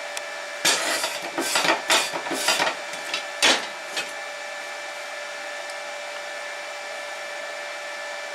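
Wire brush scrubbed in quick strokes over the weld beads on a steel plate, brushing off slag and scale, for about two seconds, with two short strokes after. For the rest only a steady hum is left.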